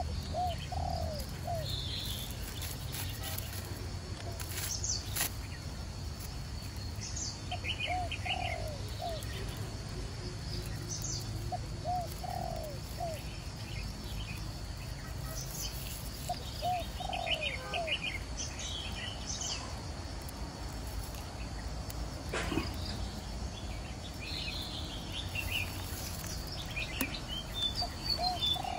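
Birds calling: a dove gives a short cooing phrase several times, while small birds chirp and tweet higher up in between.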